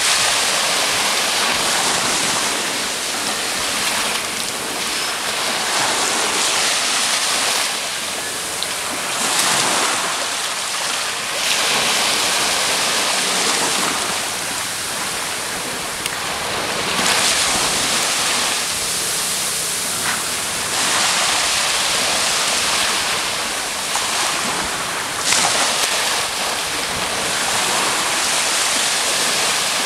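Small waves washing onto the beach, the surf swelling and easing every few seconds, with wind on the microphone.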